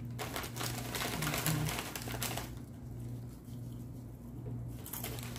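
Fingers rubbing and picking at the thin, sticky inner skin of a peeled onion: a light, scratchy rustling for the first two seconds or so, a pause, then more of it near the end.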